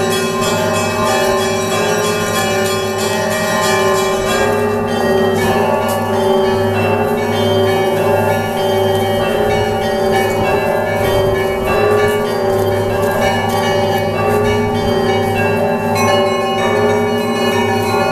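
Orthodox church bells ringing a Sunday peal: many smaller bells struck in quick, overlapping patterns over the regular, steady strokes of a deep bell, their tones ringing on into one another.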